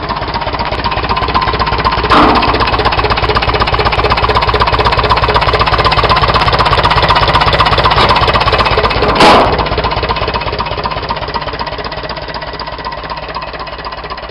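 Leyland 255's four-cylinder diesel engine running with a steady rhythmic diesel clatter. It gets louder from about two seconds in, with a short loud noise at that point and another at about nine seconds, then eases back down.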